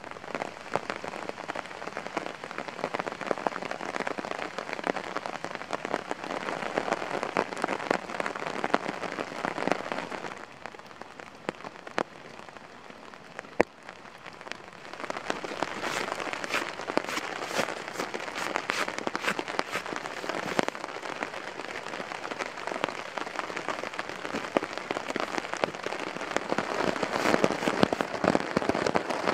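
Rain falling, a dense patter of many small drops. It eases about ten seconds in and grows heavier again about five seconds later.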